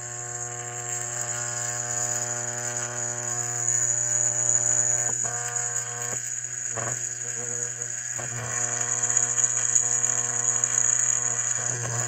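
The solenoid valve coil of a Hydrolevel VXT programmable steam boiler water feeder gives a steady electrical buzz while it is energized. The buzz means the feeder's delay has timed out and it is holding the valve open to feed the boiler. A few faint clicks come about halfway through.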